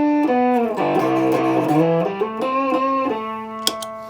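Electric guitar, a Stratocaster, played through a Tone Bender MK 1.5 germanium fuzz pedal with the fuzz dialed all the way back and the volume at about a quarter. It plays a short single-note lick that ends on a held note fading away. The pedal adds really nothing at this setting.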